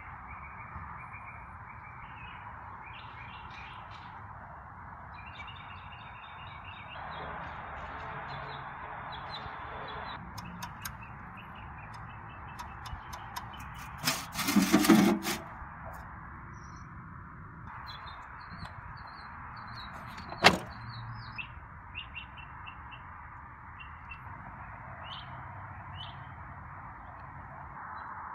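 Outdoor ambience of small birds chirping over a steady hiss. About halfway through, a loud scraping rattle of about a second comes from handling the rusty sheet-metal drawer of an old Graphotype machine. Later there is one sharp metallic click.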